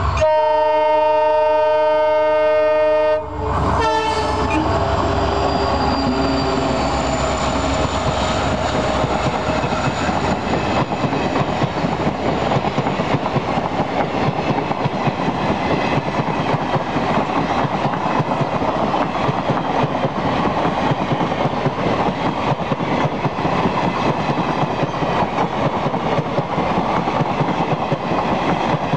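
WDP4 (EMD GT46PAC) diesel locomotive sounding its multi-tone horn for about three seconds, which stops abruptly. Then comes the steady rush and clatter of the passing train's wheels on the rails, with faint engine tones falling slightly in pitch as the locomotive goes by.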